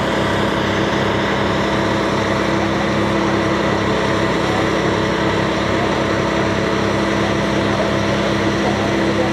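Mercedes Actros fire truck's diesel engine running steadily at raised revs, driving the hydraulics of a 42 m aerial ladder as it is raised, with a constant hum and a thin steady whine over it.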